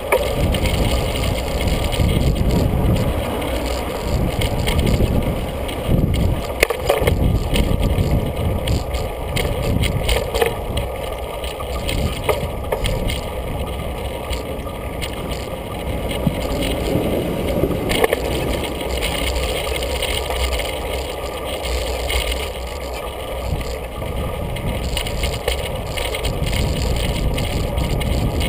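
Bicycle rolling along a city street, heard through a camera mounted on the bike: steady low rumble of road noise and wind on the microphone, with frequent rattles and knocks as the bike jolts over the surface.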